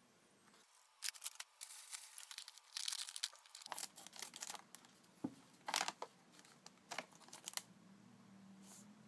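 A small plastic packet of Calbee Pro Yakyu Chips baseball cards being crinkled and torn open by hand, with the foil chip bag rustling under it. The crinkling and tearing starts about a second in and comes in short, sharp bursts.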